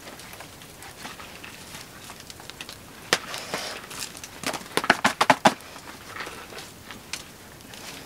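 Small campfire crackling in a stone fire ring, with a sharp knock about three seconds in and a quick run of knocks and clinks about a second later as a pot packed with snow is set down on the fire.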